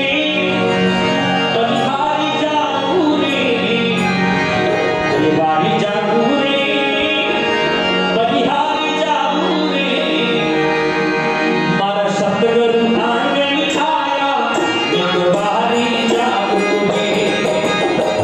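A man singing a Marwari devotional bhajan with harmonium and hand-drum accompaniment, sung without a break.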